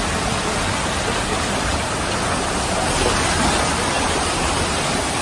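Floodwater rushing down a flooded street and churning around a tree trunk: a steady, even rushing noise.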